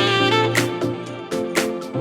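Background music with a steady beat: held bass notes under pitched instrumental lines and regular drum hits.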